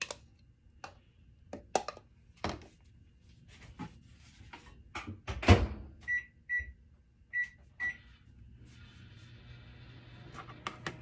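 A series of light clinks and knocks, then a microwave oven door shut with a thump. Four keypad beeps follow in two pairs, and about three seconds from the end the oven starts up with a steady hum.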